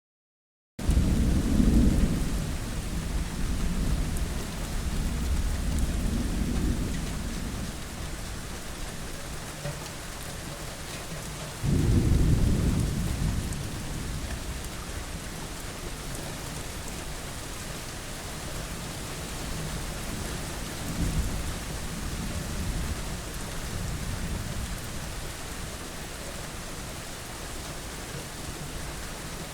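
Thunderstorm: steady rain hiss with low rolls of thunder swelling and fading at irregular times, the loudest near the start and about twelve seconds in. The sound starts suddenly out of silence about a second in.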